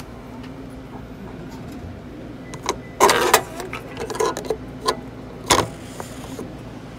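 Printed ID-photo sheet being taken from a photo booth's clear plastic receiving slot: a run of clicks, knocks and paper-and-plastic rustles, loudest about three seconds in and again near five and a half seconds, over a steady low hum from the booth.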